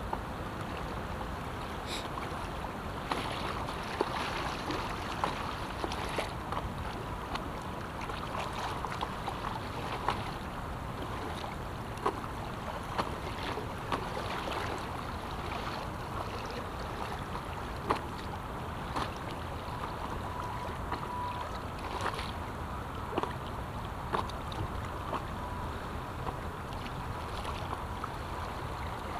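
River water rushing and lapping against an inflatable stand-up paddleboard drifting through choppy current, with small irregular slaps and splashes against the board.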